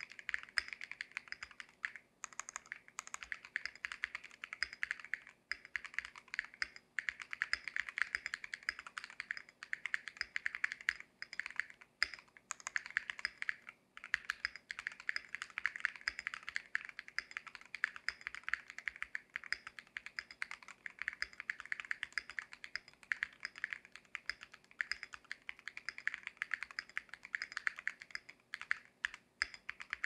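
Continuous fast typing on a Vortex VX64 Lite mechanical keyboard fitted with KTT Sea Salt linear switches: a dense clatter of keystrokes with brief pauses every few seconds.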